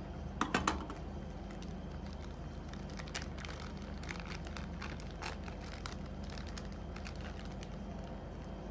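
Steady low hum of the ice roll machine's refrigeration unit running under the cold pan. About half a second in, a few sharp metallic clicks as a steel spatula is set down on the pan, then scattered light ticks.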